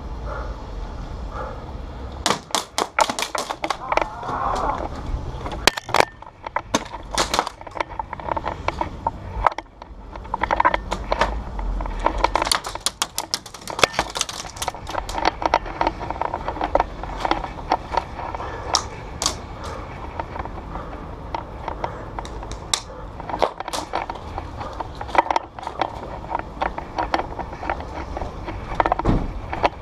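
Airsoft guns firing: irregular runs of sharp clicks and snaps, some in quick strings, others single.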